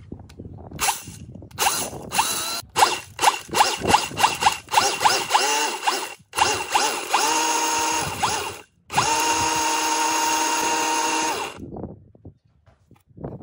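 Homemade mixer driven by a cordless grinder motor, grinding dry corn kernels in a steel pot. The motor is pulsed in a quick series of short bursts, each winding up in pitch. It then runs steadily at a held pitch for several seconds, with a brief break, and stops near the end.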